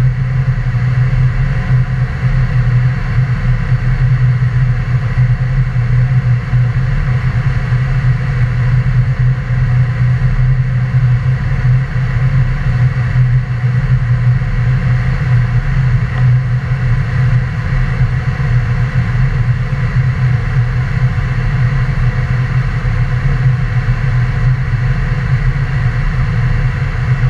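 Steady drone of a Cessna Citation business jet's engines, holding an even power with no rise or fall in pitch: a strong low hum under an even hiss.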